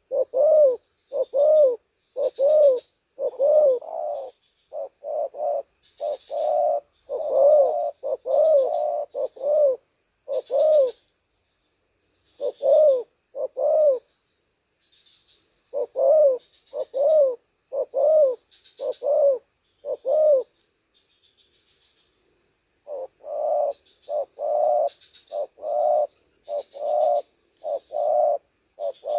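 Spotted doves cooing: a long run of evenly repeated low coo notes, about one and a half a second, breaking off briefly three times. A faint high chirping runs underneath.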